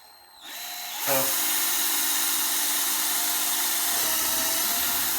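Power drill spinning up about half a second in, then running steadily as it bores a hole through the wall of a plastic tub.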